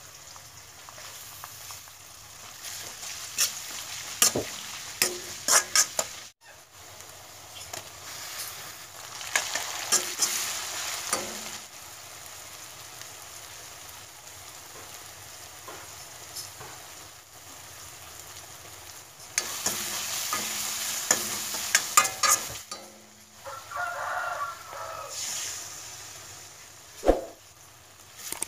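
Vegetables stir-frying in oil in a wok: a steady sizzle, with a spatula scraping and clanking against the pan in spells.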